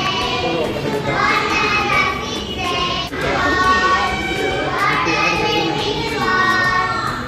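A small group of young children singing together in unison, in held phrases about a second long with short breaks between them.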